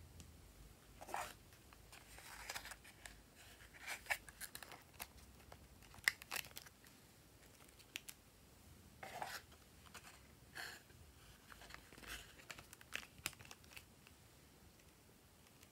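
Quiet, scattered soft crackling and peeling noises, a second or two apart, as foam clay is pressed out of silicone moulds and set onto slime.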